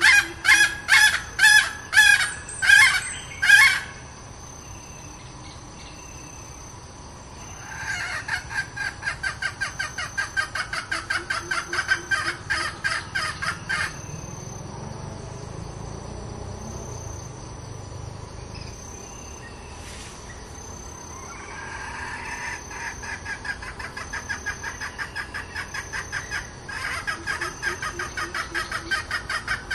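Red junglefowl hen, a decoy bird, calling in bouts of quick, evenly repeated clucks, her full 'toi' calling used to lure wild junglefowl. The first bout ends about four seconds in, the second comes a few seconds later and lasts about six seconds, and a third builds near the end. Crickets trill steadily underneath.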